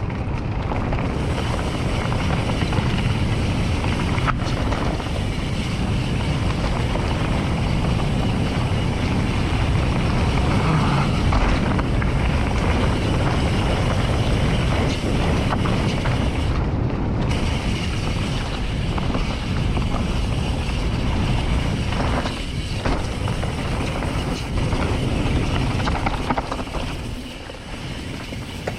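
Steady wind rush on the microphone mixed with the rumble of a mountain bike rolling over a dirt trail, with a single sharp click about four seconds in.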